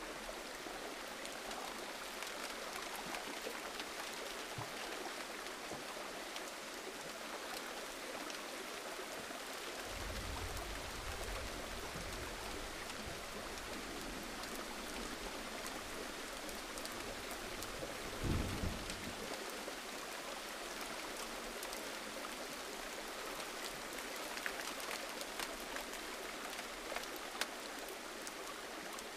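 Steady gentle rain: a dense patter of raindrops with scattered sharper drips. A low rumble comes in about a third of the way through, and a short, louder low thump comes a little past the middle.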